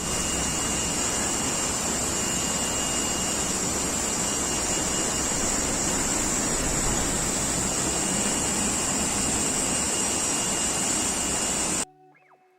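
Waterfall: the steady rushing roar of falling water, even in level throughout, cutting off abruptly near the end.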